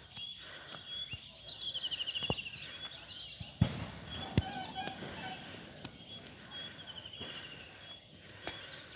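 Wild birds calling in the surrounding trees: assorted high chirps and whistles, with a fast trilled call twice. A couple of sharp taps stand out near the middle.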